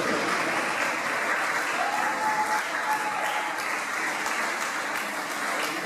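Audience applauding: a dense run of hand claps with crowd voices mixed in.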